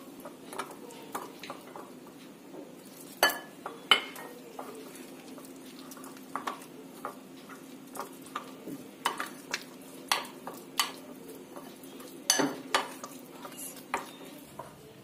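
A metal spoon stirring flour, spices and water into a thick wet batter in a glass bowl, with a wet mixing sound. The spoon clinks and knocks against the glass at irregular moments, a few times more sharply.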